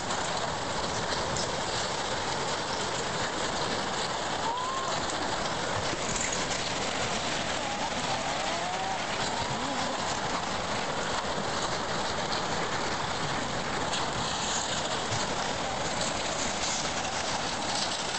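Steady roar of a debris-laden floodwater surge sweeping buildings away: rushing water with timber and roofing grinding and cracking as houses are pushed along.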